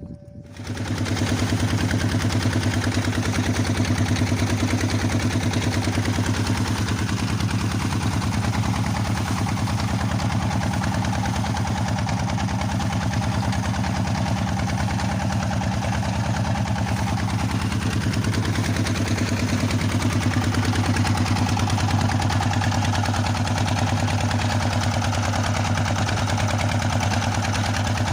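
Small boat's engine coming up in the first second, then running steadily at a constant speed with a deep, even drone.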